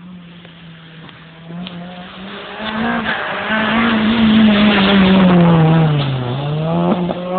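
Renault Mégane Coupé race car driving past at speed. Its engine grows louder as it approaches, its note drops as it goes by about six seconds in, then the revs climb again as it accelerates away.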